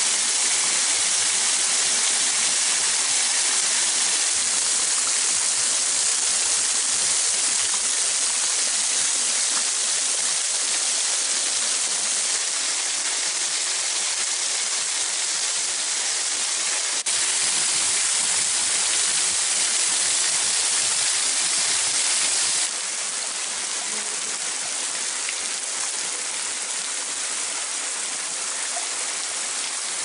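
Waterfall: thin streams of water falling and splashing over mossy limestone rock, a steady high hissing rush. The rush changes level suddenly twice and is a little quieter after about two-thirds of the way in.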